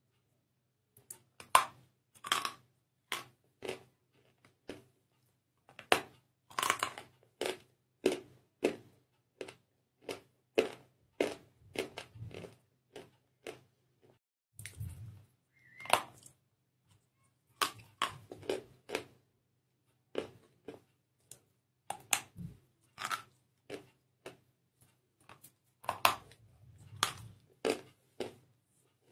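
A block of white chalk being bitten and chewed: sharp, dry crunches in quick runs of several a second, broken by short pauses.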